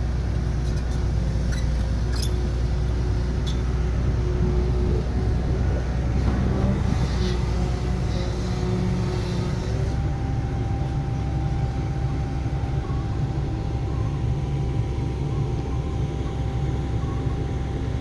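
Engine of heavy construction machinery running steadily with a low hum, with a few light clicks in the first few seconds.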